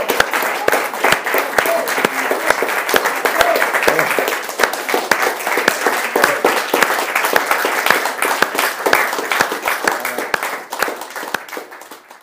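A small gathering applauding, with many individual hand claps and a few voices mixed in. The clapping thins out near the end and stops.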